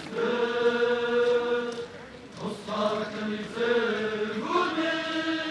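Soundtrack music built on a chanting voice holding long, drawn-out notes, about three of them, each lasting one to two seconds with a short dip between.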